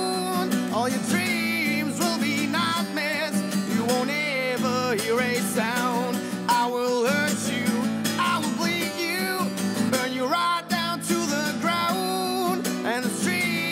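Music: a LAG acoustic guitar strummed, with a male voice singing long, wavering notes over it.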